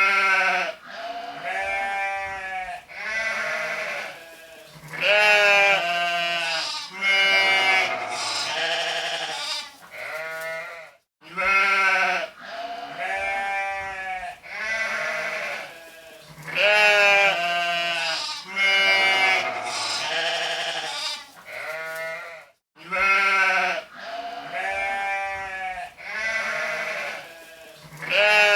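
Sheep bleating, several wavering bleats one after another and sometimes overlapping. The same stretch of bleating repeats about every eleven and a half seconds, each time after a brief silent gap.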